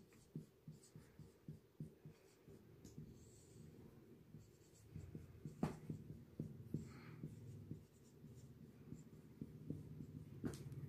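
Marker pen writing on a whiteboard: faint, quick taps and squeaky scratches of the pen strokes, with one sharper click partway through.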